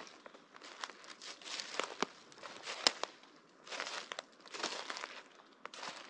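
Footsteps walking over forest-floor litter, about one step a second, each step crunching, with sharp snaps of small dry branches breaking underfoot.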